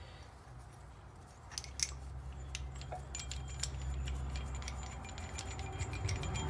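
Light, irregular metallic clicks and clinks as a caliper piston compressor tool is fitted and worked into a truck's rear brake caliper, getting busier after about a second and a half, over a steady low hum.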